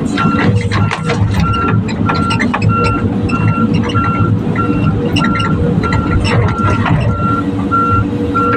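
Volvo EC210 excavator's diesel engine running under load, with its travel alarm beeping steadily at about one and a half beeps a second, over frequent metallic clanks and knocks.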